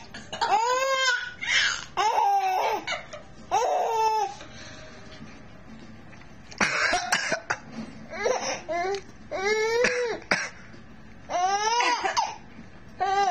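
A baby laughing in short, high-pitched bursts, set off by someone's coughs. A cough-like noisy burst comes about seven seconds in, after a brief lull.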